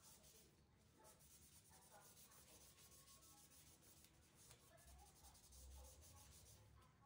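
Faint rubbing of a cloth rag wiping gel stain onto a tapered wooden furniture leg, in quick repeated strokes.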